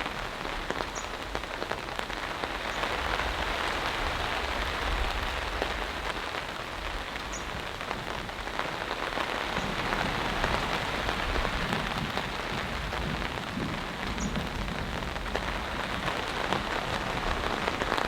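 Steady rain falling, an even hiss of drops, with a low rumble joining about halfway through.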